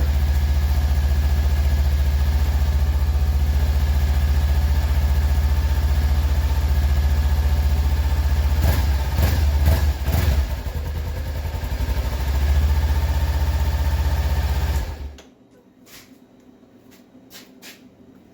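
2013 Kawasaki Ninja 300's parallel-twin engine idling on fresh oil, its note briefly rising and falling about nine to ten seconds in, then switched off about fifteen seconds in. A few faint clicks follow.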